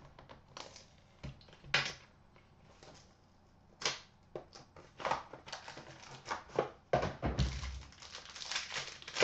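A sealed hockey card box being cut and pried open by hand: scattered clicks and knocks of the tool and box with short rustles and scrapes of packaging, and a dull thump about seven seconds in.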